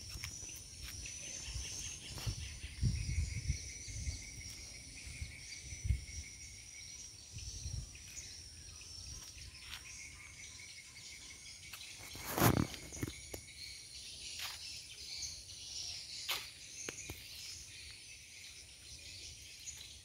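Outdoor ambience of insects chirring steadily at a high pitch with bird calls, low rumbles during the first several seconds, and one sharp knock about twelve seconds in.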